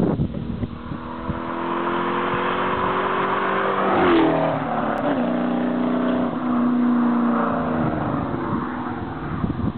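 Modified Ford Mustang 4.6-litre V8s with aftermarket exhausts (an SLP loud-mouth system on the GT, welded-in Flowmasters on the SVT Cobra) accelerating past. The engine note climbs, peaks and bends down in pitch about four seconds in, then stays loud for a few seconds before fading slightly.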